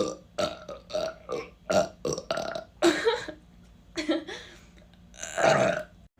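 A person burping in a quick run of about a dozen short belches, roughly two a second, then one longer burp near the end.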